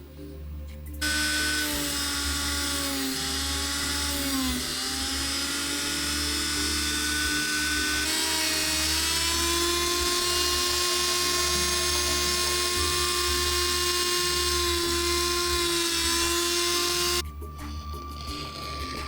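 Small high-speed electric rotary tool running steadily with a whine. It starts about a second in, its pitch dips briefly under load, and it cuts off suddenly near the end.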